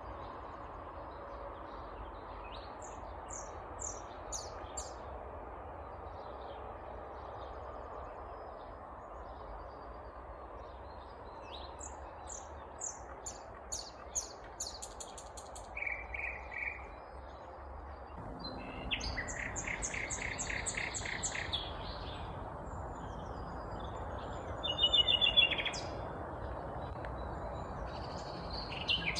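Nightingale singing: separate phrases of fast repeated notes and rattles with pauses between them, over steady background noise that grows a little louder about two-thirds of the way through.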